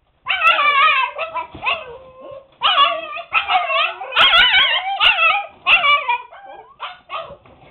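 Several seven-week-old husky puppies making a racket together: overlapping high, wavering cries in bursts, with a short lull about two seconds in.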